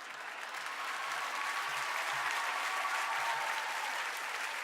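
Large theatre audience applauding, swelling over the first second or so and then holding steady.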